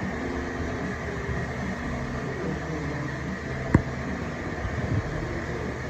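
Steady mechanical hum and hiss, like a fan or air handler running, with one sharp click a little under four seconds in.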